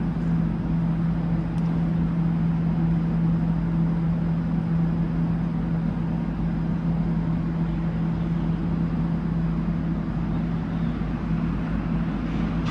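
A vehicle's engine running steadily: a constant low drone with a single steady hum over it.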